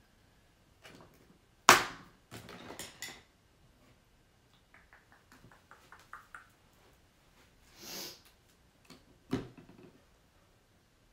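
Handling noises: a sharp knock about two seconds in, then a short clatter, a run of quick faint ticks in the middle, a brief hiss, and another knock near the end.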